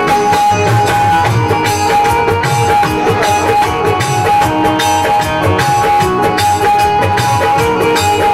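Live stage music from a Bhojpuri song: a held keyboard melody over a steady drum beat, with no singing heard.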